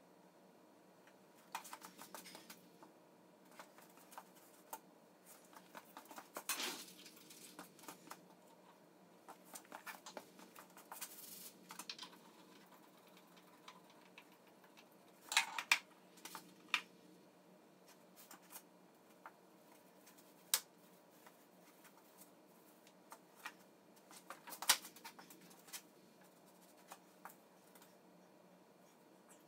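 Sporadic light clicks, taps and small knocks of hand work on a wooden workbench, with a faint steady hum underneath and a few louder clusters of clatter.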